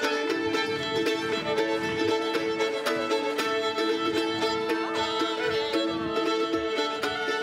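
Live contra dance band playing: two fiddles carry the tune over plucked-string rhythm with a steady beat.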